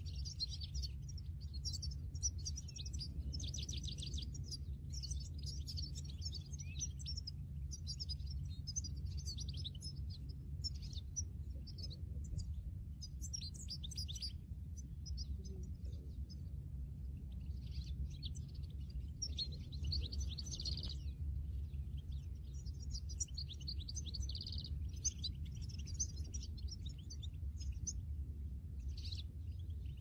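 European goldfinches twittering: quick runs of high chirps and trills in repeated bursts with short pauses, over a steady low rumble.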